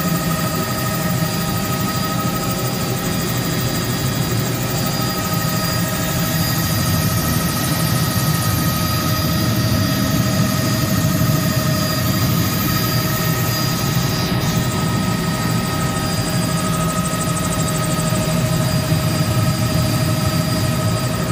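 Helicopter in flight heard from inside the cabin: a steady low rumble from the rotor and engine with several constant high whining tones over it.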